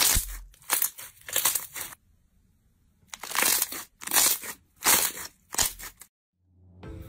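Slime being squeezed and kneaded by hand, giving off crunching, crackling noises in about seven short bursts, with a pause of about a second partway through.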